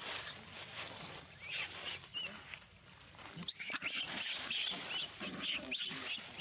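Baby macaque giving short, high-pitched squeals: a few at first, then a rapid run of them in the second half.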